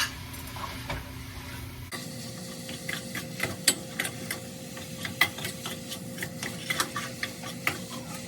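Ground beef cooking in a frying pan: irregular clicks and pops over a low hiss, which change abruptly about two seconds in.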